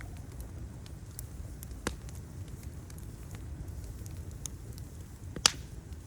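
Open fire crackling: scattered small pops over a steady low rumble, with a sharper pop about two seconds in and one loud, sharp snap near the end.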